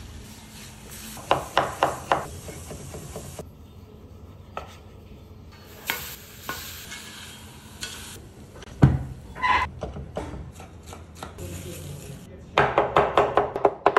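Mushrooms sizzling in a hot cast iron skillet, with clacks and scrapes as they are laid in and moved about, and one heavy thump of the pan. Near the end comes a fast, even run of knocks on a wooden cutting board.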